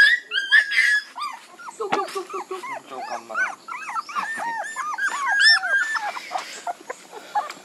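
A litter of young puppies whimpering and whining in a quick, overlapping run of short high-pitched cries: hungry pups calling for their mother to nurse.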